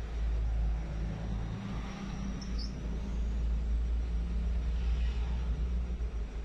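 A Hyundai Grand Starex's D4CB diesel van running, a steady low rumble with no pauses.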